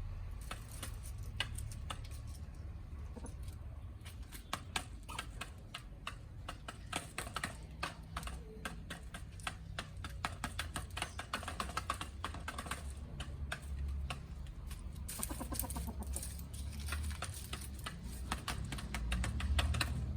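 Chickens pecking at feed: rapid, irregular sharp clicks of beaks striking food and ground, with occasional soft clucks, over a steady low rumble.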